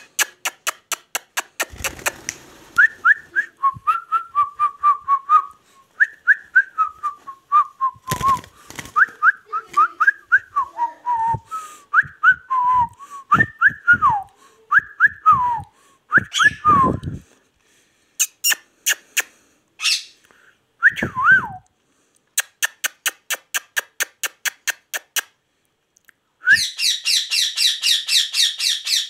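Indian ringneck parakeet giving a long series of whistled notes that slide up and down in pitch, then a rapid, chattering screech near the end. A regular run of sharp clicks, a few a second, goes on underneath.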